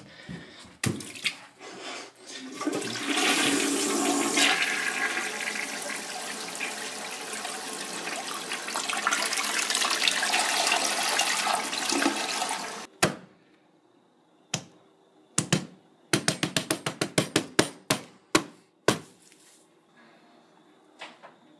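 Toilet flushing: a loud rush of water lasting about ten seconds that cuts off suddenly. It is followed by a run of quick sharp taps, several a second.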